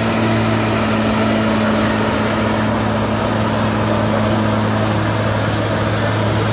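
Ford F-250 monster truck's engine running at a steady low speed as the truck rolls slowly, a constant low hum.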